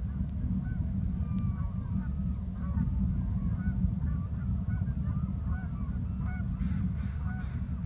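Many birds calling together in short, overlapping, honk-like notes, over a steady low rumble.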